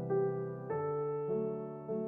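Background music: a slow, soft keyboard melody, with a new note struck about every half second and each one fading away.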